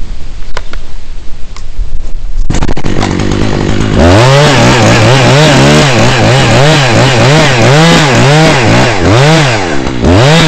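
Two-stroke chainsaw cutting through a poplar trunk. The saw comes in about two and a half seconds in, is opened up to full throttle a second or so later, and its engine note rises and dips over and over as the chain loads in the wood.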